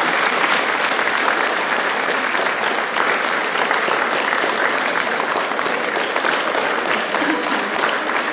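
Audience and cast applauding: many hands clapping together in a steady, dense patter.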